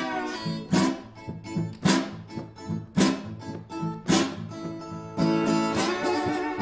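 Acoustic guitar playing a blues riff: a hard strummed chord about once a second, with quicker picked notes between.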